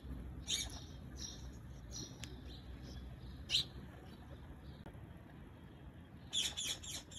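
Clear plastic (cellophane) sheet crinkling in short bursts as it is rolled and pressed into a henna cone, with a quick run of crinkles near the end, over a low steady room hum.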